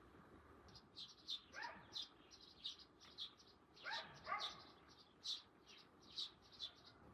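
Small birds chirping repeatedly, with three short dog barks: one about a second and a half in, and two close together near the middle.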